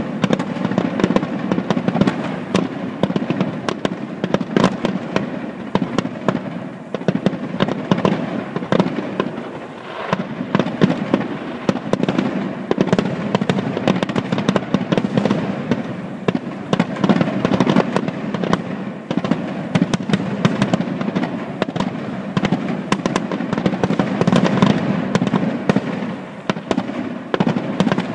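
Aerial fireworks display: shells bursting in a rapid, near-continuous barrage of bangs and crackles, with brief lulls about ten seconds in and near the end.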